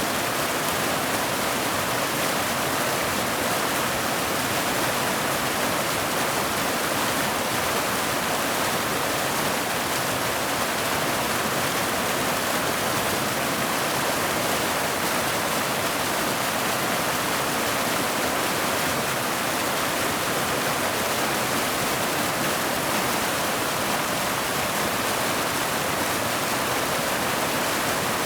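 Mountain waterfall: a steady, unbroken rush of falling water, mostly hiss with little deep rumble.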